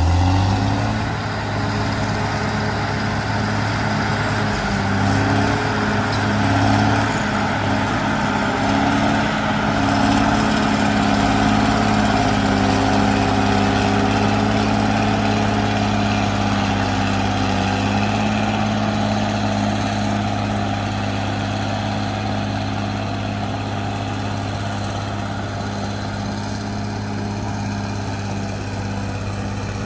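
Caterpillar D6R XL bulldozer's diesel engine running steadily under work, a constant low drone with mechanical noise over it, easing slightly in the last third.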